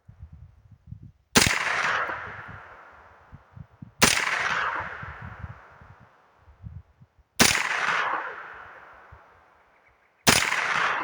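Bear Creek Arsenal BC9 9mm carbine firing Tula 115-grain steel-case rounds: four single shots about three seconds apart, each followed by a long fading echo.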